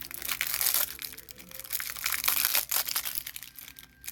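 Wrapping being crinkled and torn off a vintage typewriter ribbon, an irregular run of crackling rustles that dies down near the end.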